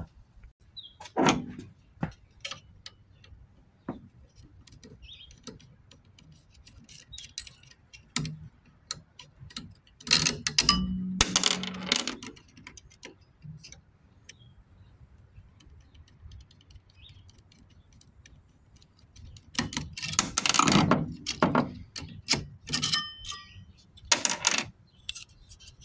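Hand tools and small metal parts clicking and clinking while a cooling fan is removed from a battery charger's metal case, with louder clattering bursts about ten seconds in and again around twenty seconds in, and a few short ringing metallic pings near the end.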